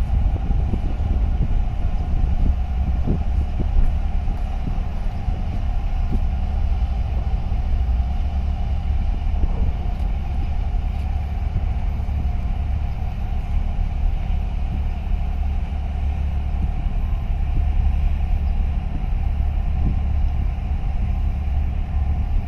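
Steady low rumble with a constant mid-pitched hum above it from a large container ship passing close by.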